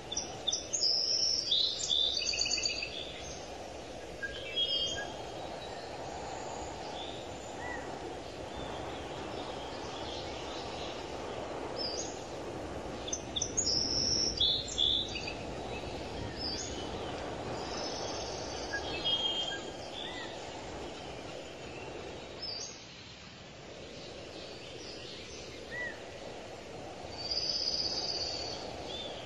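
Birds chirping and calling in short bursts of high notes, at the start, in the middle and near the end, over a steady low background noise.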